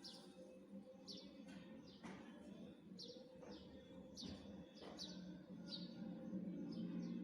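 Faint bird chirping: short, high chirps falling in pitch, repeated every half second or so, over a low steady hum.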